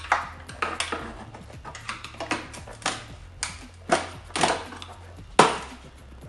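Sharp knocks and slaps on a gel-coated race tail section as it is forced down onto a Kawasaki Ninja 400's subframe. There are about a dozen hits at irregular spacing, each ringing briefly, and the loudest comes about five and a half seconds in.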